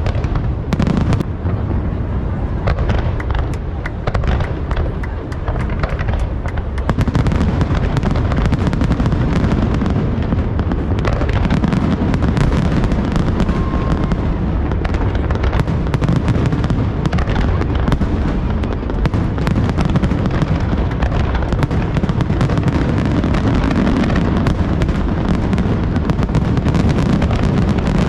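Large fireworks display: a continuous barrage of shell bursts and crackles with a heavy low booming underneath. It grows denser and louder about a third of the way in.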